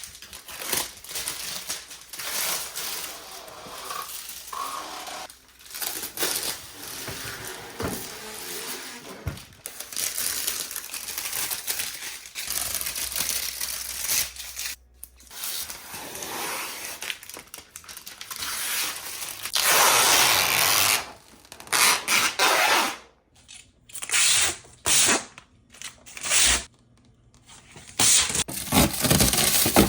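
Irregular scraping, rustling and tearing noises in bursts, with the longest and loudest stretch about two-thirds through: tape and protective plastic being peeled off a new refrigerator.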